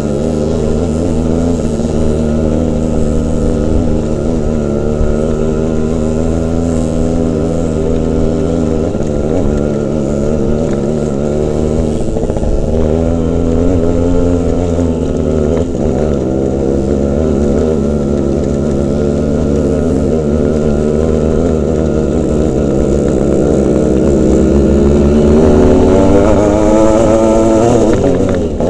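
Small two-stroke motorcycle engine running under way on a rough gravel track, its note wavering as the throttle is worked, rising and getting louder near the end.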